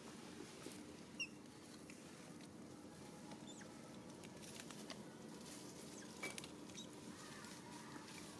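Faint, scattered rustling and light clicking, with a couple of very brief high squeaks, the clearest about a second in.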